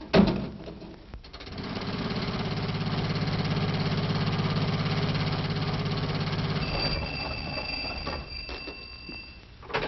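Sound effect of an old car engine chugging with a fast, even rhythm that builds up after a second or so, then fades away as the car drives off. Two faint high steady tones come in near the end.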